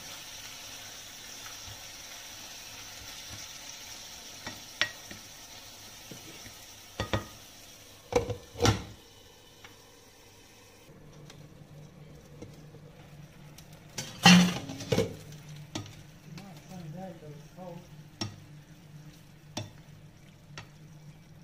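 Diced pork sizzling in a non-stick frying pan while a plastic spatula stirs and scrapes, with sharp knocks of spatula and glass lid against the pan. The sizzle drops away about halfway through, when the pan is covered, and the loudest clack comes a few seconds later.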